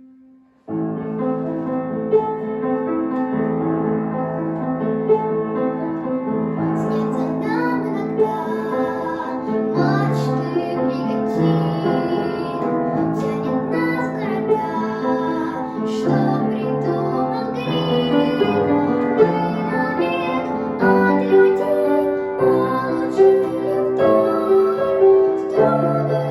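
A song starting after a brief quiet moment: piano-led accompaniment with a young girl singing.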